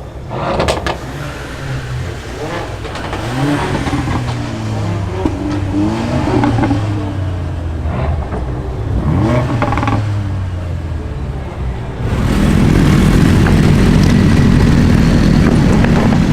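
Car engine idling and being blipped, its pitch rising and falling with several quick revs; about three-quarters of the way through a much louder, steady rumble suddenly takes over.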